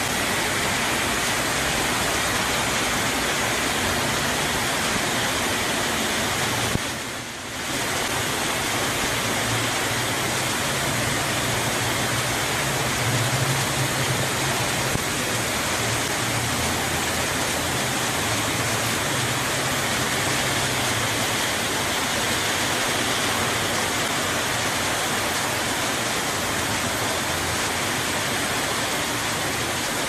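Heavy downpour: a steady, loud hiss of rain, dipping briefly about seven seconds in.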